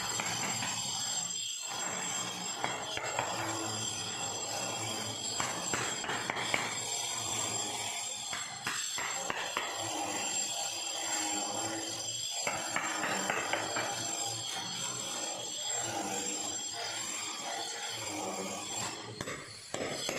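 Background music, with irregular hammer blows on a steel chisel and axe blade and some scraping as they are driven under large floor tiles to pry them up.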